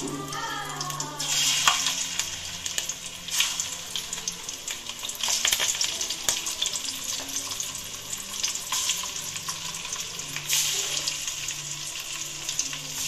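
Masala-coated chicken pieces sizzling as they shallow-fry in hot oil with curry leaves and green chilli. The sizzle swells louder several times as more pieces go into the oil.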